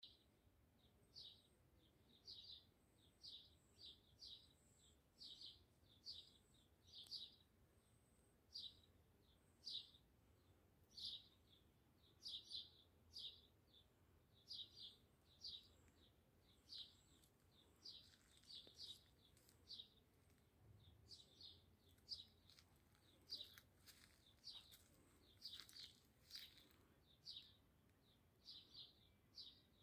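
A small bird calling over and over with short, high chirps, one or two a second, with a few faint rustles about three quarters of the way through.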